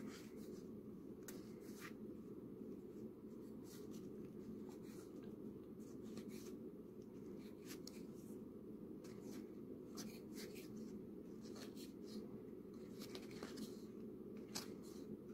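Faint rustling and scattered light clicks of oversized Here to Slay game cards being leafed through and slid between two hands, over a low steady hum.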